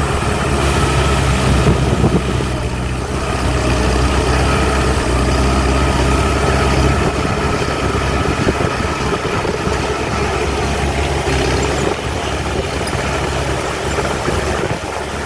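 Heavy diesel engine of earthmoving equipment (dump truck or bulldozer) running steadily, its low engine note easing off about halfway through.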